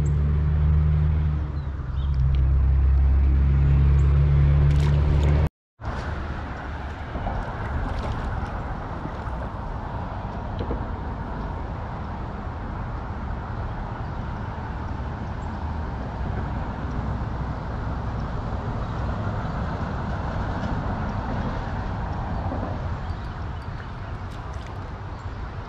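A loud, low, steady motor-like hum that cuts off abruptly about five seconds in, followed by a steady, fainter rushing noise.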